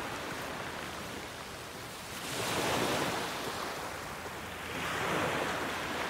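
Waves washing onto the beach, surging twice: about two and a half seconds in and again about five seconds in.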